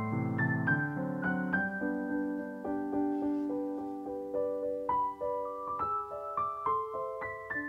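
Background piano music: a gentle melody of single struck notes, one following another at a steady pace.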